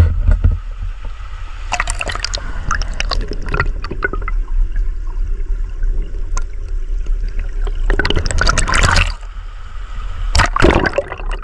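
River water splashing and gurgling, with a few louder splashes, the longest about eight seconds in. Under it, a steady low rumble of wind on the microphone.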